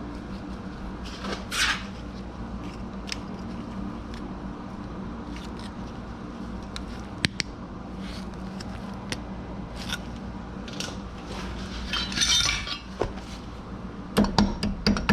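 Wrenches and other hand tools clinking and rattling against metal car parts over a steady low hum, with sharp scattered clicks. Near the end comes a quick run of metal strikes, about four a second.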